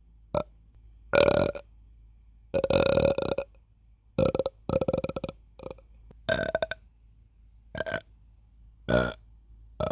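A person burping over and over: about nine separate burps of differing length, a second or so apart. The two longest, around 3 and 5 seconds in, are broken into a quick rattle.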